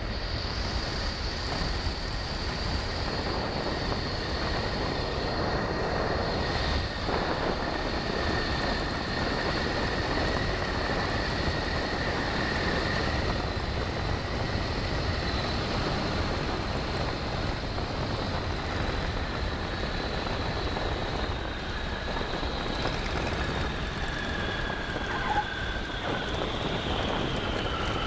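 Boeing Stearman biplane's radial engine and the rush of wind in the open cockpit during final approach and landing. A high whine in the sound slowly falls in pitch, dropping further near the end as the plane slows on the runway, with a brief bump about 25 seconds in.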